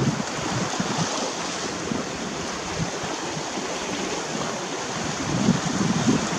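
Steady rush of sea surf and wind, with low gusts of wind buffeting the microphone near the end.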